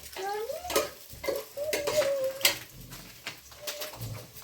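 Metal utensils clinking against cooking pots and dishes, a few sharp clinks. Between them comes a wavering, gliding call.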